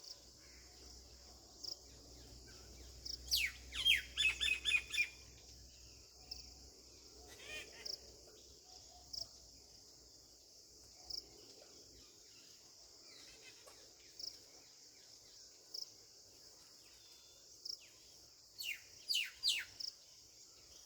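Small birds calling in two bursts of quick, sharply falling chirps, one a few seconds in and one near the end, over a steady high insect drone with short, regularly spaced pips.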